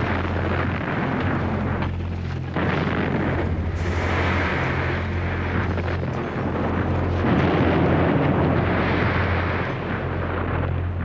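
Battle sound effects: continuous rumbling explosions and artillery fire over a steady low drone, swelling louder in waves.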